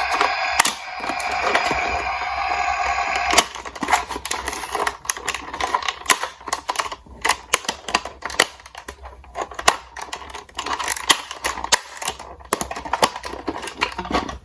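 Rapid, irregular clicking and clattering of small diecast toy cars knocking against each other and a hard surface, like typewriter keys. A steady held tone sounds over it for the first few seconds, then stops.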